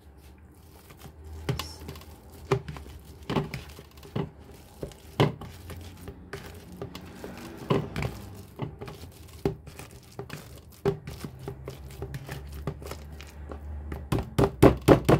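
Ripe bananas being mashed in a plastic bowl, first with a fork and then with a metal potato masher: irregular taps and clicks of the utensil, with a quick run of louder strikes near the end.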